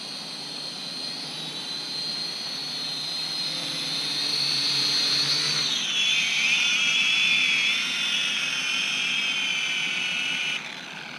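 Helicute H818HW toy quadcopter's motors and propellers whining, growing louder as it flies closer. About six seconds in the pitch steps down as the quad is caught in hand and throttled back. The motors cut off abruptly shortly before the end.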